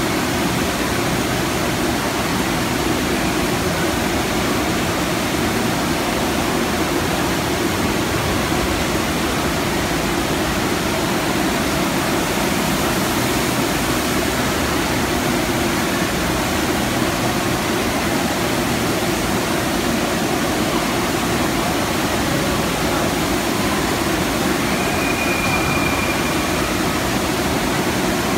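Steady, loud rush of the water sheet pouring over the wave surface of an indoor surf simulator.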